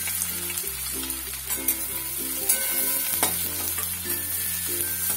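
Sliced onions sizzling in hot mustard oil in a kadai, with a metal spatula stirring and scraping against the pan in scattered clicks. Light background music plays underneath.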